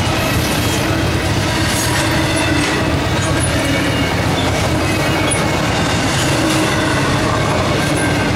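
Intermodal freight train rolling through a grade crossing: a steady, loud din of wheels on rails and cars rattling past, with faint steady tones over it.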